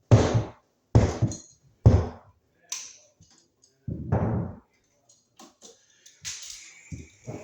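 Four dull thumps, the first three about a second apart and the fourth about two seconds later, followed by a fainter hiss near the end.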